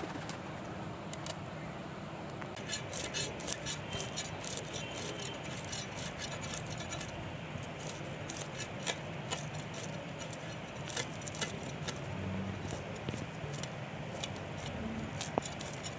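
Many small, sharp clicks and clinks, coming irregularly, over a steady low background hum.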